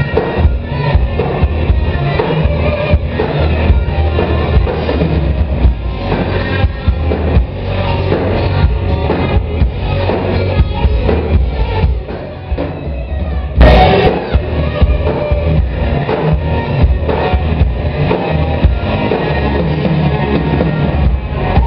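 Live rock band playing with electric guitars, bass guitar and a drum kit. The music dips briefly, then a sudden loud hit comes about fourteen seconds in.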